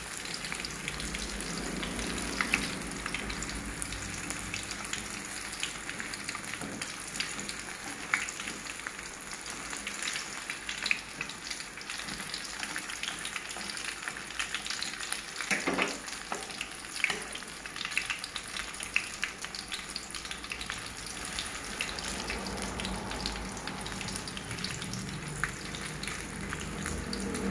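Battered banana fritters deep-frying in hot oil in a wok: a steady sizzle with frequent small crackling pops.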